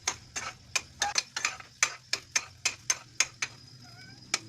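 A kitchen utensil clicking sharply against cookware, about four clicks a second, thinning out after about three and a half seconds with one last click near the end.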